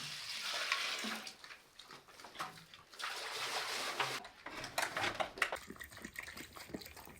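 Water running into a pig's water trough, in two spells of pouring about two seconds apart, followed by small splashes and clicks.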